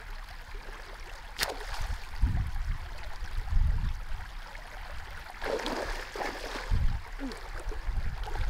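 Shallow muddy stream water rushing steadily, with a few deep low rumbles and a sharp click about one and a half seconds in.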